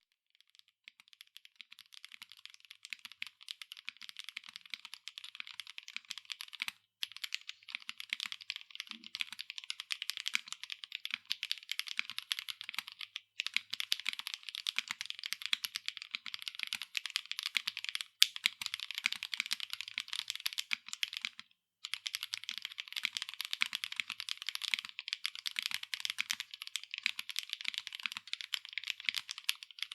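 Continuous fast typing on a mechanical keyboard with Kailh BCP linear switches and PBT doubleshot keycaps on an aluminium plate, top-mounted with no foam: a dense stream of crisp keystrokes. It has three brief pauses and one noticeably louder key strike a little past the middle.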